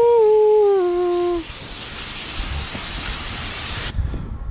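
Airless paint spray gun hissing steadily as it lays a coat of roof paint onto roof tiles, cutting off suddenly near the end. A voice sings a long held note over the first second and a half.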